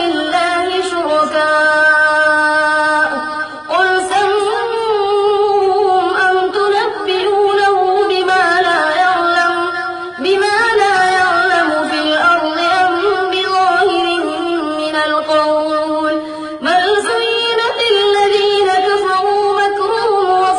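A single male voice chanting Quranic recitation in a drawn-out melodic style, holding each note for several seconds with slow turns in pitch. It pauses briefly for breath three times between phrases.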